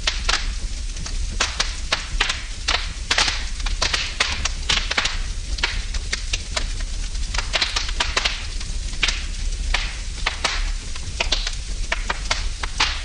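Wood fire burning in a fireplace: dense, irregular crackling and popping over a steady low hiss.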